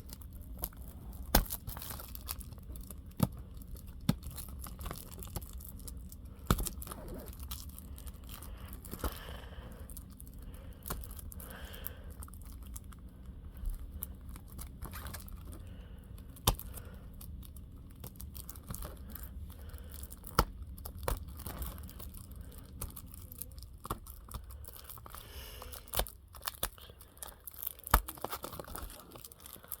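Plastic wrapping being torn and peeled off a Blu-ray case, crinkling, with scattered sharp clicks and taps of the case.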